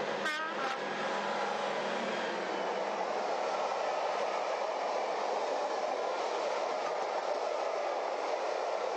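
HO-scale model trains with Piko MAK diesel locomotives running on the layout's track: a steady whirr and rumble of motors and wheels on the rails. A short wavering high tone comes near the start.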